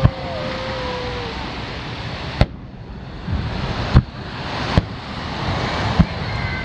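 Aerial firework shells bursting over the sea: five sharp booms, spaced one to two and a half seconds apart, over a steady rushing background noise.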